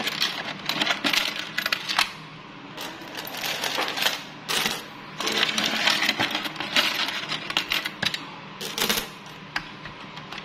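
Philippine one-peso coins clinking and jingling against each other and the wooden coin box as a hand scoops them out, in several bursts with short pauses between.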